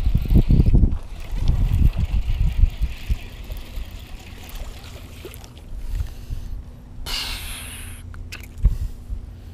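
Wind buffeting the microphone in low, uneven rumbling gusts, heaviest in the first three seconds, while a small largemouth bass is reeled in and landed; a short hiss comes about seven seconds in.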